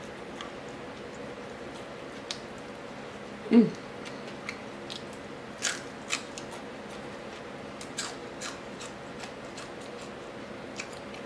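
Crispy fried crappie being bitten and chewed close to the microphone: scattered short crunches and mouth clicks, with a brief voiced hum about three and a half seconds in.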